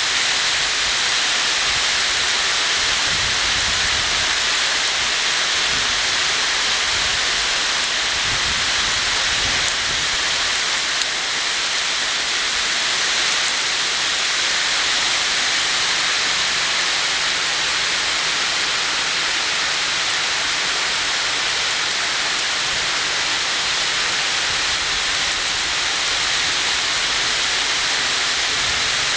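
Heavy tropical rain pouring steadily: a dense, even hiss of downpour.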